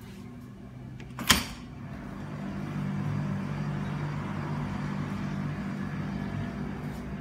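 One sharp knock from a glass sliding door about a second in, then a steady low mechanical hum that swells up and holds.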